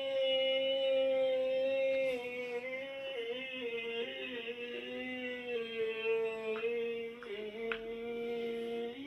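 A single voice holding long, drawn-out sung notes: one pitch held level for about two seconds, then wavering and stepping down and up through the rest. The sound is cut off above the middle treble, as through a phone or stream's audio.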